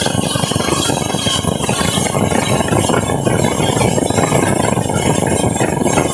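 Sawmill machinery running while sawing a large teak log, a loud continuous dense clatter of rapid knocks.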